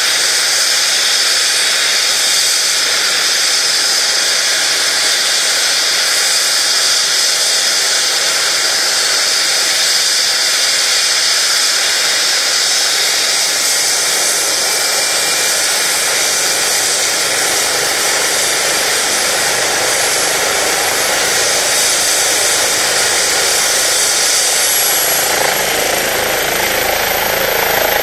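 Air ambulance helicopter (Eurocopter EC135) running on the ground with its turbines whining and rotor turning: a loud, steady, hiss-like whine. Near the end a thin high tone rises and a deeper rumble grows as power comes up for take-off.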